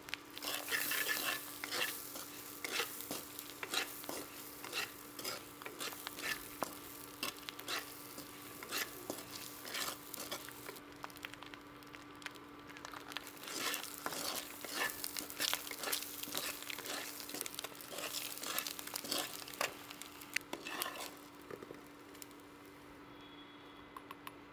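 Wooden spatula stirring and scraping boiled egg halves through sizzling masala oil in a kadai, in a long run of short scraping strokes that thin out near the end. A faint steady hum runs underneath.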